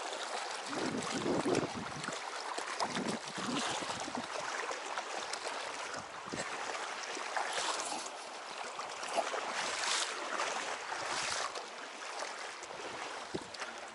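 Rubber boots wading through a shallow, rocky stream: water splashing and swishing around the boots in irregular surges over the steady rush of the current, with a few sharper splashes in the second half.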